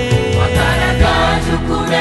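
Gospel song: a choir singing praise over a band with a steady beat, one voice holding a long note through the first half.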